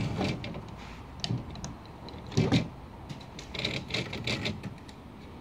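Knife blade trimming excess fiberglass screen mesh along a screen frame's spline, giving an irregular run of small crisp clicks and scratches as the fibers are cut. The strongest click comes about two and a half seconds in.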